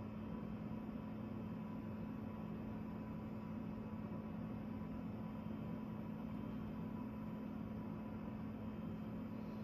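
Steady hum over a soft, even hiss.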